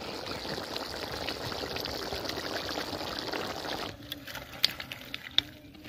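Chicken curry bubbling steadily in a metal karahi. About four seconds in, the bubbling gives way to the curry being scraped and poured out of the pan into a bowl with a metal spatula, with a few sharp clinks and scrapes.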